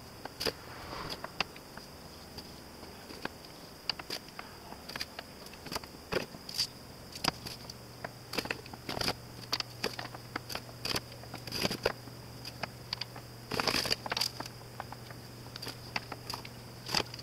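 Small end-grain wooden blocks of maple, walnut and padauk clicking and tapping as they are set down edge to edge on a board and taken from a cardboard box. The clicks come singly at irregular intervals, with a denser clatter about three-quarters of the way through.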